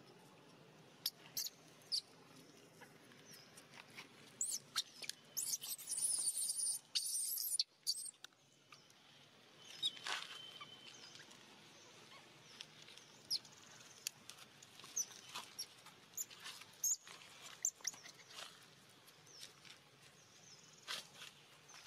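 Scattered soft clicks and crackles of a long-tailed macaque chewing mango and of monkeys shifting on dry leaves. A louder spell of rustling comes about five to eight seconds in, and a few short high chirps sound near the start, around ten seconds in and near the end.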